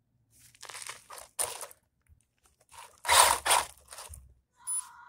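A run of short crunching, rustling noises, loudest in a pair about three seconds in.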